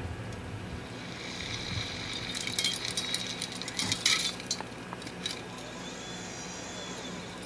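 Movie soundtrack playing back: a steady low hum, with a cluster of small metallic clinks and rattles like falling debris for about two seconds in the middle.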